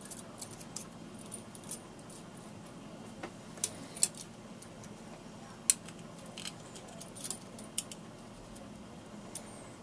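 Scattered small metallic clicks and taps as hands work the thread through the guides of a 1924 Singer class 15 sewing machine and handle small thread snips, with a few sharper clicks around the middle.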